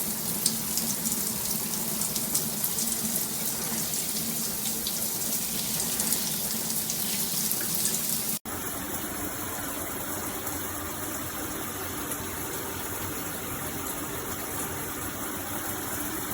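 Water spraying from a Delta In2ition dual shower head and splashing, a steady rush with many small spatters, its flow restrictor removed for more pressure. About eight seconds in the sound cuts abruptly to a smoother, slightly quieter steady rush of water.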